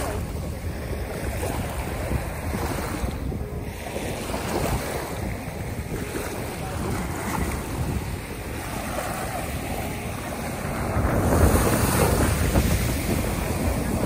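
Small bay waves lapping and washing in over a sandy, pebbly shoreline, with wind buffeting the microphone. A louder wash comes in near the end.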